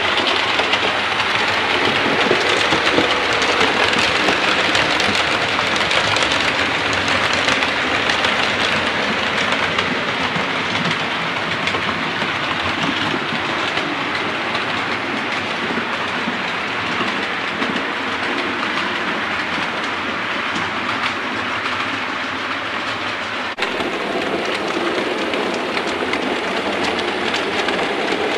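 Steady rail noise of a running train, wheels clattering over the track. The sound changes abruptly near the end.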